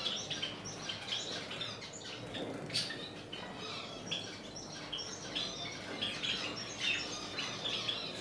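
Many small caged birds chirping together, a dense overlapping chatter of short high calls, with one sharp click about three seconds in.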